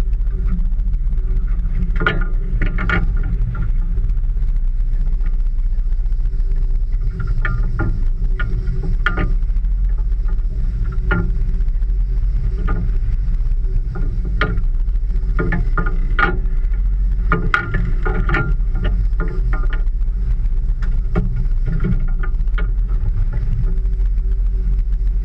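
Steady low rumble of a small boat rocking in rough sea, with irregular clicks and knocks through it.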